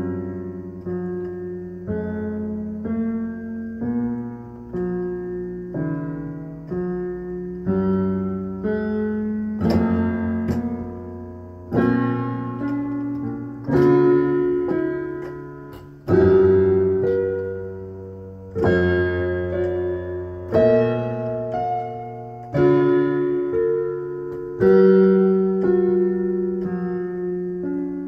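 Slow solo piano music: notes and chords struck about once a second, each ringing and fading. From about ten seconds in, heavier chords land every couple of seconds.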